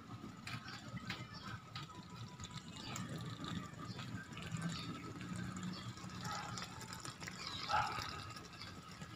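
Thick cream sauce simmering in a pan, with faint bubbling and small pops as bubbles burst on the surface.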